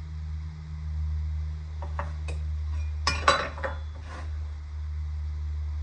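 A metal hand tool clinking and clattering against a wooden board: a few light clicks about two seconds in, then a short, louder clatter just past three seconds and a couple of softer clicks after it, over a steady low hum.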